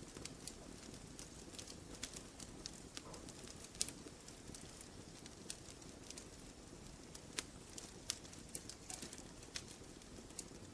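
Campfire burning: wood crackling with irregular sharp snaps and pops over a low, steady background, with a louder snap about four seconds in.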